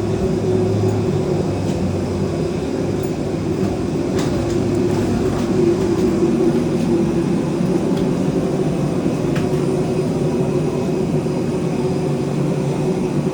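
Steady low mechanical drone with a constant hum, with a few faint clicks over it.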